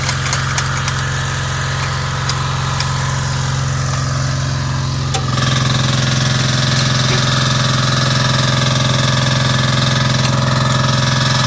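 An engine running steadily, with a low hum. About five seconds in it steps up louder and fuller. A few light clicks and taps sound in the first three seconds.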